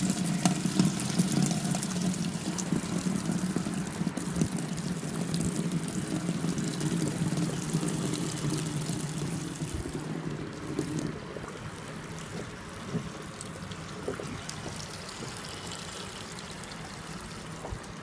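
Danby DWM17WDB portable washer filling: water pouring steadily from its inlet into the tub. About ten seconds in, the pouring becomes much quieter and stays low.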